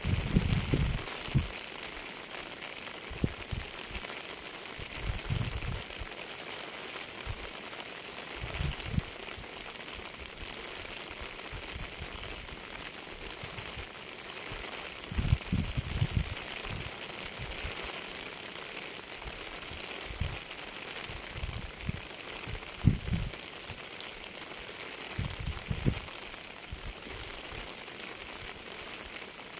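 Steady rain hiss, with irregular low thumps every few seconds.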